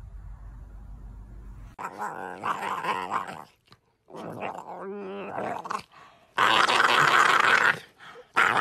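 Puppy play-growling in repeated noisy bursts while its jowls are wiggled by hand, with a short whining tone partway through and the loudest growls in the second half.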